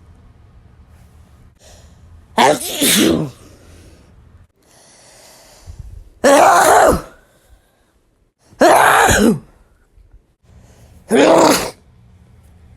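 Four human sneezes, about two and a half seconds apart, each a short sharp burst with a voiced cry.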